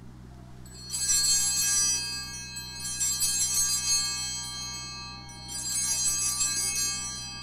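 Altar bells (a set of small Sanctus bells) rung three times for the elevation of the chalice at the consecration. Each ring is a bright jingle of several small bells that fades before the next.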